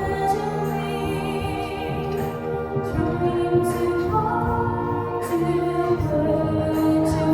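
A choir sings held notes over ensemble accompaniment, several parts sounding together.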